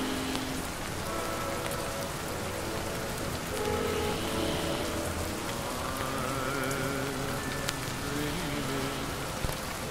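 Rain falling steadily, with an old love song playing quietly underneath; only its instruments are heard here, with long wavering notes in the second half.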